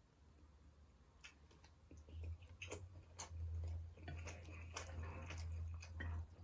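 A person chewing food close to the microphone: faint at first, then wet chewing and sharp mouth clicks from about two seconds in. A steady low hum runs underneath.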